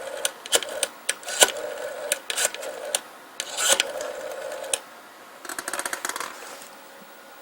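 Rotary telephone on a PBX extension being dialled: scattered handset and dial clicks over a steady dial tone that stops a little before five seconds in, then a quick run of even clicks as the finger wheel spins back and pulses out a digit, about five and a half seconds in.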